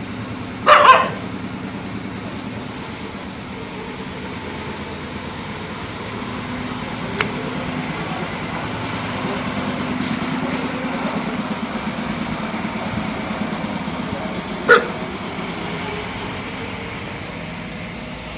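Dog barking at a fox: two quick loud barks about a second in and one more sharp bark near fifteen seconds, over a steady low hum.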